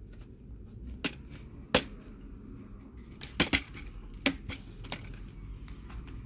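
Sharp plastic and metal clicks and taps of a laptop keyboard being worked loose and lifted out of its palmrest after its plastic rivets have been melted, a few single clicks with a quick double click about three and a half seconds in.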